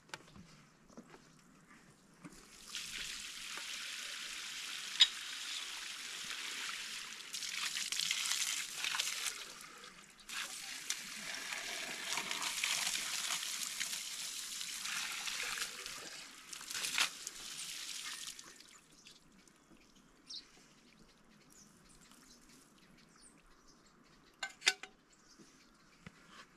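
Water gushing from the end of a hose and splashing onto rocks. It starts about two and a half seconds in, falters briefly near the middle, and stops a few seconds later.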